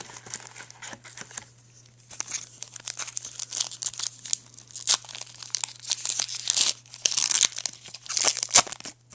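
Plastic trading card pack wrapper being torn open and crinkled, quieter at first and then louder and busier from about two seconds in, over a faint steady low hum.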